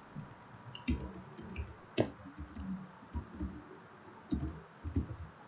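Computer keyboard typing: a dozen or so irregular key taps and clicks, the sharpest about two seconds in.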